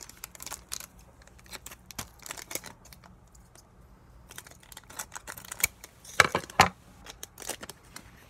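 Foil booster-pack wrapper crinkling and trading cards being handled: a string of small clicks and rustles, with a few louder snaps a little past six seconds in.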